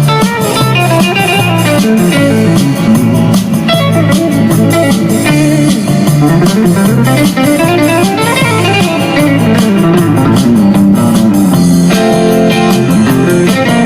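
Background music: a blues-style electric guitar piece with plucked notes over a steady beat.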